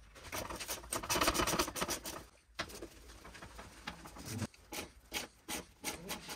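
Ratchet wrench clicking rapidly as a motorcycle's lower shock mounting bolt is turned out. The clicking thins to scattered single clicks and metal knocks after about two and a half seconds.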